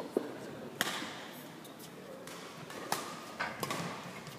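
Badminton rackets striking a shuttlecock in a rally: three sharp hits, one about a second in and two more close together around three to three and a half seconds in.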